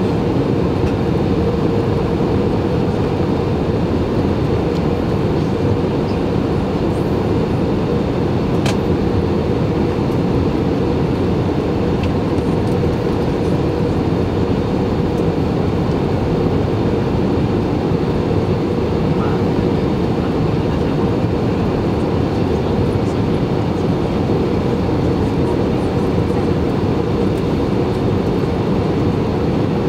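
Steady cabin roar of an Airbus A320-216 on approach, heard from a seat just behind the wing with the flaps extended: the CFM56-5B engines and the rushing airflow blend into one even noise, with a steady mid-pitched hum running through it.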